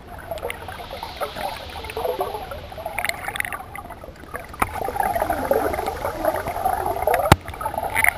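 Water gurgling and splashing around a canoe, with a few sharp knocks, the loudest near the end.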